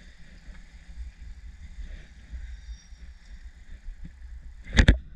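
Trick scooter's wheels rolling on a concrete driveway with a steady low rumble, then near the end a loud clack as the scooter comes down hard on the concrete during a bar spin attempt.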